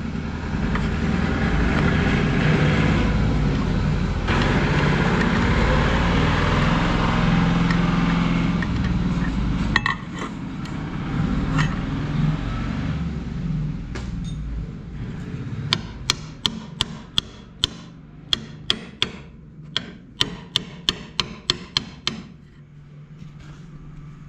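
A loud, steady rumbling noise fills the first ten seconds or so, then fades. In the second half a hand hammer taps metal parts of a two-wheel tractor gearbox being reassembled, a quick run of sharp taps at about three a second.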